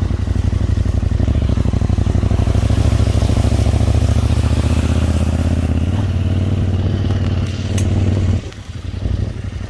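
Husqvarna Norden 901 parallel-twin engine pulling steadily under throttle in off-road mode. About eight seconds in the throttle closes and the sound drops sharply, then it picks up again.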